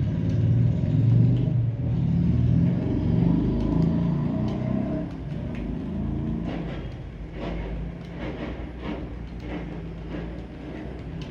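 Low engine-like rumble, loudest over the first few seconds and then fading, with a scattering of sharp clicks in the second half.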